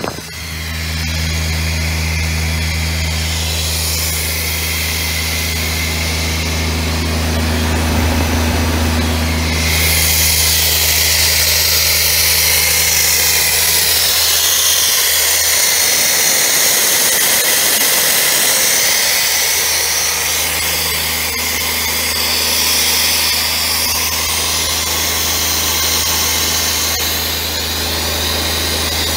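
Atlas Copco XAS37 portable air compressor's diesel engine running steadily, a low even drone with a broad hiss over it. The drone weakens for a few seconds midway, then returns.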